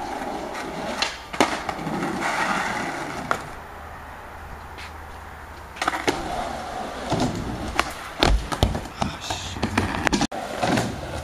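Skateboard rolling on concrete with the wheels rumbling, broken by sharp clacks of the board's tail and wheels hitting the ground as tricks are tried, several of them in the second half.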